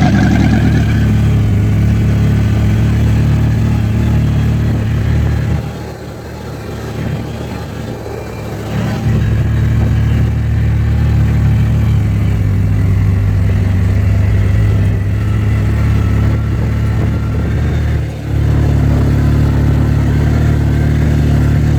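A small engine running steadily with a low hum, dropping back for a few seconds about a quarter of the way in and again briefly near the end.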